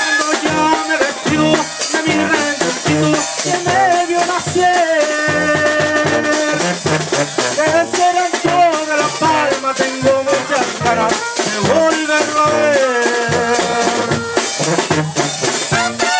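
A Mexican tamborazo banda playing live: the tambora bass drum and cymbal keep a steady beat under brass melody lines and a sousaphone bass.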